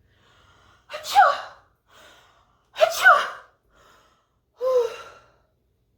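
A person sneezing three times, about two seconds apart, each a loud voiced "achoo" preceded by a short, faint inhale; the third sneeze is a little softer.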